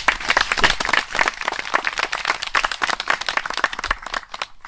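A small crowd applauding with hand claps, the clapping thinning out and dying away near the end.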